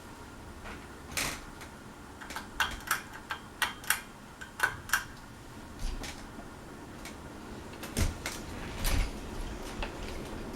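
A dozen or so sharp, irregular clicks and knocks, with two duller thumps about eight and nine seconds in, over the steady faint hum of a running Hunter Beacon Hill ceiling fan.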